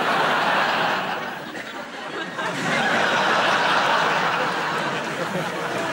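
Studio audience laughing loudly, starting suddenly, easing slightly about two seconds in and swelling again a moment later.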